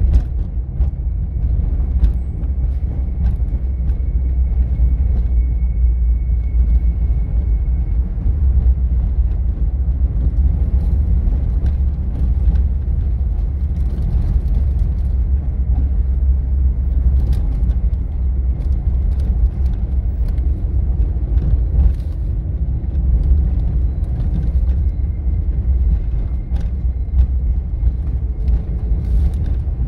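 A car driving along a town street: a steady low rumble of engine and road noise, with scattered light knocks and rattles.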